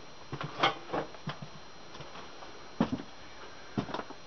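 Scattered light knocks and clicks from a person moving across a wooden attic floor: several in the first second and a half, then one near the middle and a close pair near the end, over a faint steady hiss.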